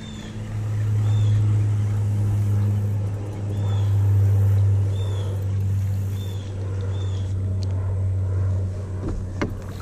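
A steady low drone, with a bird's short high chirps repeating about once a second.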